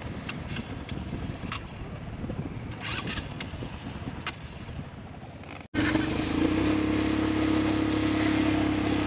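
ATV engines running as the quads ride over a gravel trail, a rough rumble with scattered clicks. About six seconds in, an abrupt cut gives way to a louder, steady engine drone.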